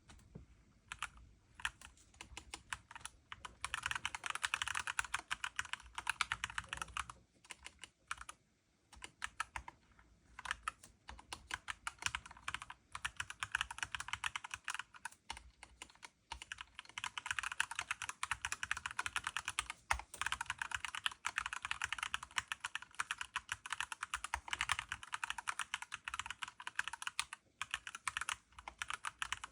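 Typing on a Mistel MD600 Alpha split mechanical keyboard: a few scattered keystrokes, then runs of fast, dense key clatter broken by brief pauses.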